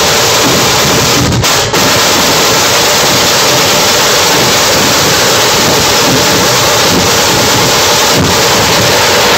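Massed dhol drumming from a dhol-tasha troupe, so loud that the microphone overloads into a continuous distorted roar in which the individual beats are hard to pick out. There are two short dips about a second and a half in.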